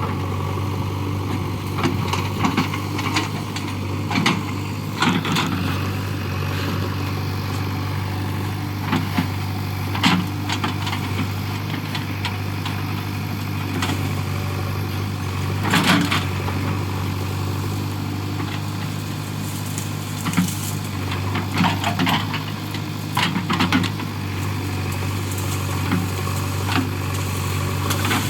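JCB 3DX Eco backhoe loader's diesel engine running steadily under work, with repeated short sharp knocks and cracks over it, the loudest about a third and halfway through.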